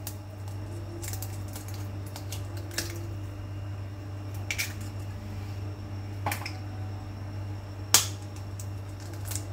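Eggs being cracked into a glass blender jug: about five sharp, separate taps and clicks of shell on glass, the loudest near the end, over a low steady hum.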